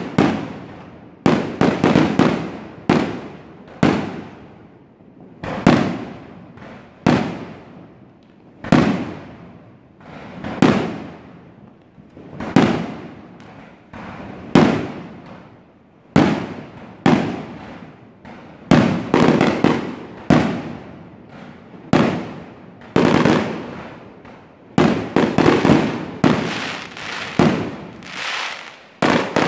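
Aerial fireworks shells bursting one after another, a loud bang about every one to two seconds, each trailing off over about a second. Quick clusters of several bangs come near the start and again near the end.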